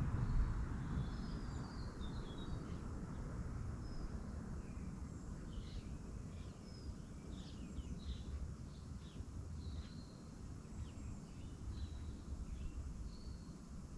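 Small birds chirping in short high calls, most busily midway through, over a low steady rumble of background noise.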